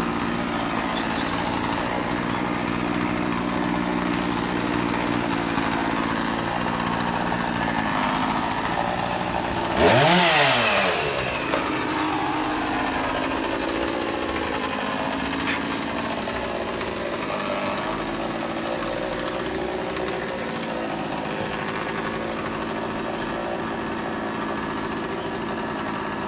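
Chainsaw engine running steadily at low speed, revved hard once about ten seconds in with the pitch rising and falling back over about a second and a half, then settling back to its steady running.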